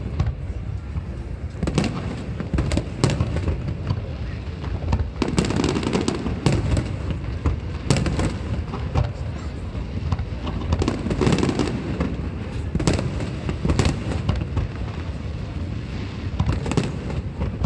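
Fireworks display of aerial shells bursting: repeated sharp bangs, many a second apart and some overlapping, over a continuous low rumble.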